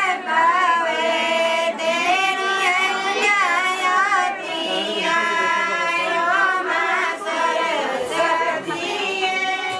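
Group of women singing a Pahari (Himachali) wedding folk song together, in long drawn-out notes that slide up and down in pitch.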